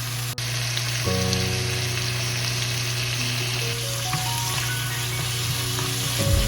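Food sizzling steadily in hot oil in a pan, starting abruptly about a third of a second in.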